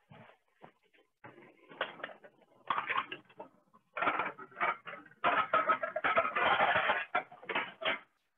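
Ceramic dishes clattering and clinking as they are handled, a run of knocks and rattles that grows busier and louder about four seconds in.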